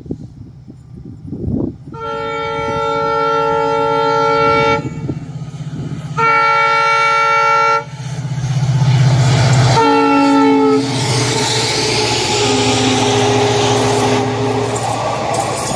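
EMD diesel locomotive approaching at speed and sounding its multi-tone horn: two long blasts, then a short one whose pitch drops as the locomotive passes, then a longer, lower-pitched blast. The diesel engine's rumble builds under the horn and gives way to the rushing noise of the passing coaches.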